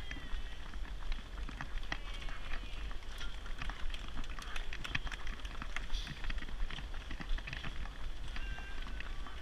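Thule jogging stroller pushed at a run over paving: a steady crackle of small clicks and rattles from its wheels and frame over a constant low rumble.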